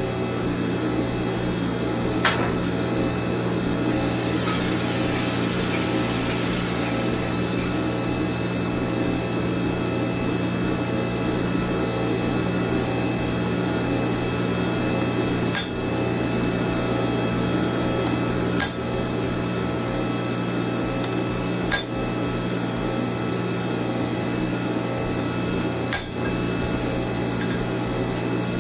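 Hydraulic forging press's electric pump motor running with a steady hum, with a few sharp metallic clicks spread through.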